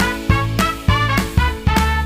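Upbeat swing-style background music with a bouncy steady beat.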